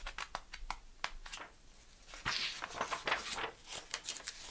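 Paper pages of a picture book rustling as a page is turned, with small handling clicks and the loudest rustle about two seconds in.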